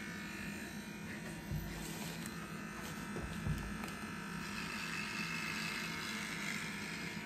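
Electric baby hair clipper running with a steady buzz as it is moved through a baby's hair, with two soft low bumps about a second and a half and three and a half seconds in.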